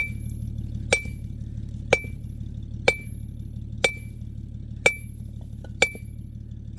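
Short-handled sledgehammer striking rock, breaking it up: evenly paced blows about once a second, each a sharp crack with a brief metallic ring.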